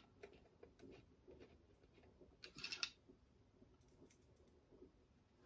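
Faint handling noise of items being packed back into a box: scattered light clicks and taps, with a short rustle of packaging about two and a half seconds in.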